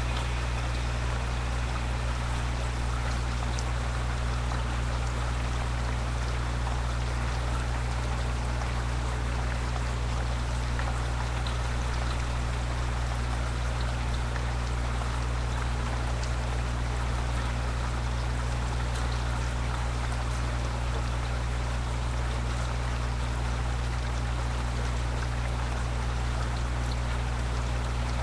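Steady rain falling as a thunderstorm dies down, an even hiss with a few faint drips, over a constant low hum.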